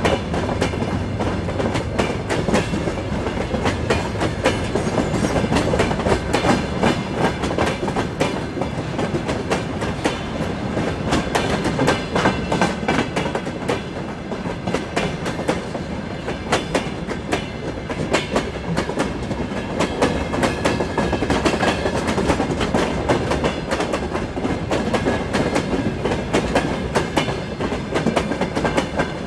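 Freight train wagons, covered hoppers and then open gondolas, rolling past close by: a steady clatter of wheels over the rail joints with the rumble of the running gear.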